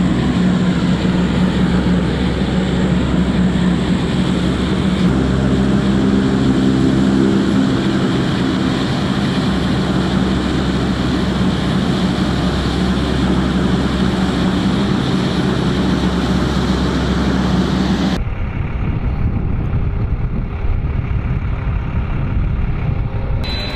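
Steady engine noise from aircraft and ground vehicles on a flight line, with a strong low hum. About three-quarters of the way through it cuts abruptly to a duller, lower rumble.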